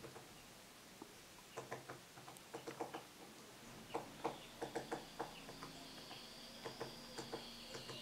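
Woodpecker knocking on wood in irregular bursts of a few quick taps at a time, not a steady drum roll.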